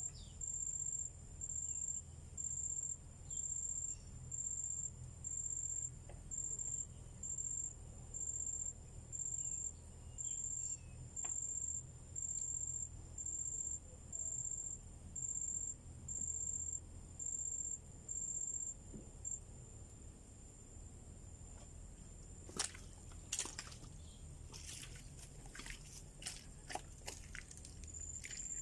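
An insect chirping in an even rhythm of high-pitched pulses, about one every second and a half. The chirping stops about two-thirds of the way through. Scattered clicks and knocks follow near the end.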